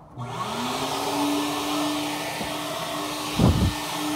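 Car wash's self-serve vacuum starting at the push of its button: the motor whines up in pitch over about a second, then runs steadily with a hiss of air. A short thump about three and a half seconds in.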